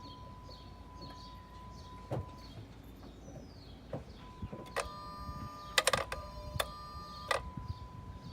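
Engine bay of a 2010 Dodge Charger 3.5 as the key is turned: a few sharp clicks and a buzzing tone lasting about two and a half seconds, with no starter cranking. This is the no-start, no-crank condition, and the owner takes the sound for the electronic throttle body trying to open.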